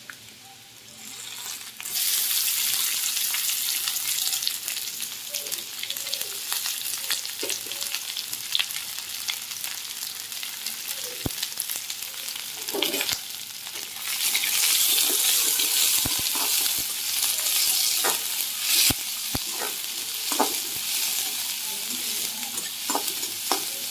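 Chopped onion frying in hot oil in a kadhai: the sizzle starts suddenly and loud about two seconds in as the onion goes into the oil, then runs on steadily. From about halfway it gets louder, with the clicks and scrapes of a spatula stirring against the pan.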